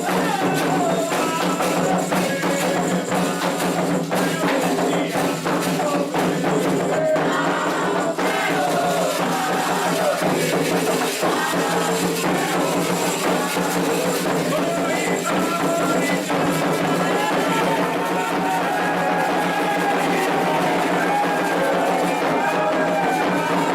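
Candomblé ritual music: steady, rapid hand drumming on atabaque drums and other percussion with voices singing over it, the songs that call the orixás.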